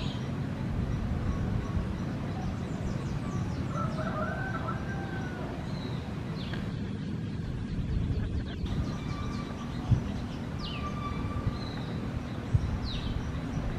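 Saddleback tamarins giving short, high-pitched chirps that fall in pitch, scattered every second or two, over a steady low rumble, with a couple of soft knocks in the second half.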